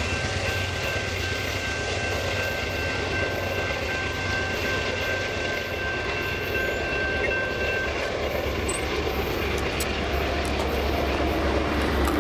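Railroad grade-crossing warning bell ringing as a steady high tone over a low rumble, cutting off about eight seconds in as the gate arm goes up. Near the end a semi-truck grows louder as it approaches.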